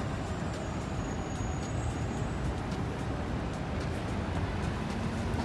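City street traffic: a steady rumble of passing cars, with a low engine hum coming in near the end.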